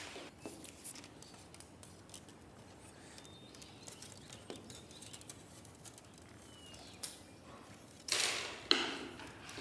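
Light handling sounds of a bamboo kite frame and cloth on a table: scattered faint clicks and taps, then a louder rustling scrape about eight seconds in.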